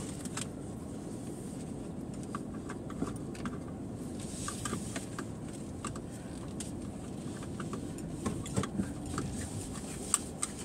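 Car cabin noise from a car rolling slowly: a steady low rumble with scattered light clicks and ticks.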